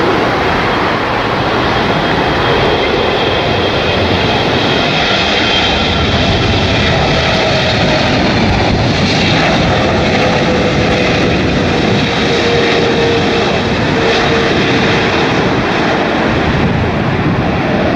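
Boeing 777 jet engines on a landing in gusty typhoon winds, a steady loud jet rush with an engine whine whose tone falls slightly partway through. Strong wind buffets the microphone underneath.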